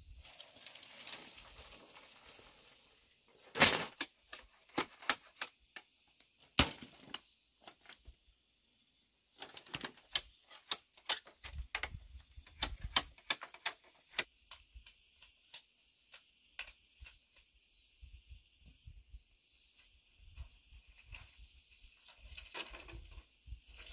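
Sharp knocks and clacks of hollow bamboo, scattered with a quick run of them in the middle, as poles are handled and knocked against each other and the ground. A steady high insect chirring runs underneath.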